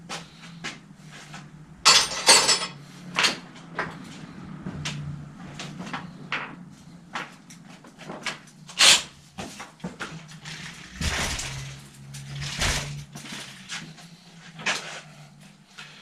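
Irregular metallic clicks, knocks and rattles of a bicycle being handled in a workshop repair stand, with louder clattering about two seconds and nine seconds in, over a steady low hum.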